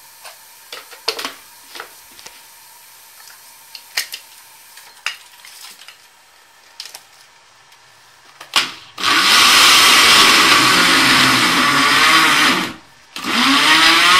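Electric blender mixing qatayef batter of flour, semolina and yeast: it starts about nine seconds in, runs loudly for about four seconds, stops briefly, then runs again near the end. Before it, a few light clinks and knocks of glassware being handled.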